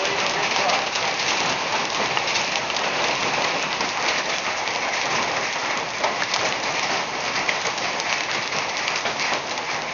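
Heavy rain and hail falling on the ground: a dense, steady hiss full of small, sharp impacts.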